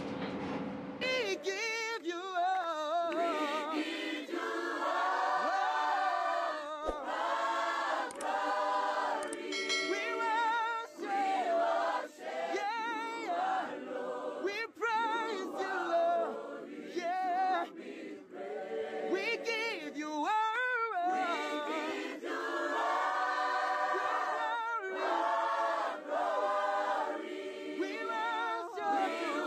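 Background music of a choir singing, starting about a second in.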